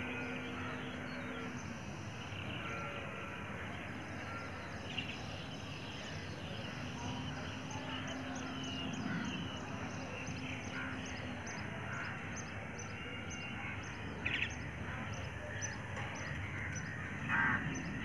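Outdoor ambience of birds calling over a steady background hiss, with a run of short high chirps repeating about two or three times a second through the second half.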